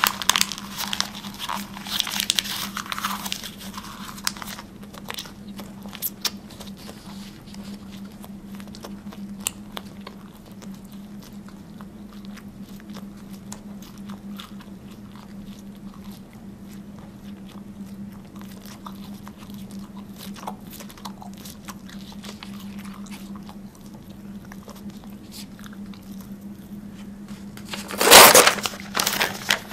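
Paper crinkling as it is stuffed into a mouth, then chewed with scattered small crunching clicks; about 28 seconds in there is another loud burst of paper crinkling. A steady low hum runs underneath.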